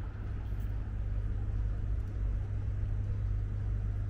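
Steady low rumble of street traffic, with general outdoor city noise above it.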